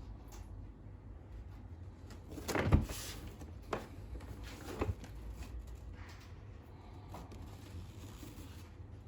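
Handling of a plastic toy blaster and its packaging: a cluster of knocks and clicks about two and a half seconds in, then two smaller knocks, over a low steady hum.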